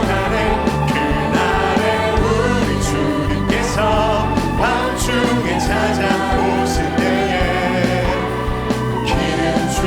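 A live worship band and singers performing a contemporary Korean worship song, with several voices singing over drums, bass and sustained keyboard chords, and cymbal hits keeping the beat.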